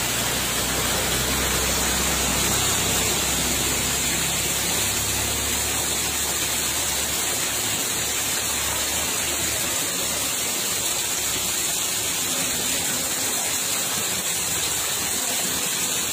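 Steady rush of fast-flowing floodwater, an even hiss. A low rumble underneath fades out about halfway through.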